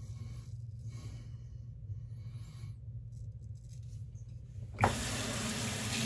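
Faint scraping strokes of an Essence by Tedalus shavette razor across lathered stubble. About five seconds in, a knock, then a tap runs water steadily into a sink.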